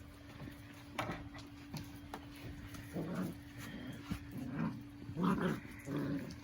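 Golden retriever puppies making short whimpers and growls as they play, about four brief calls in the second half.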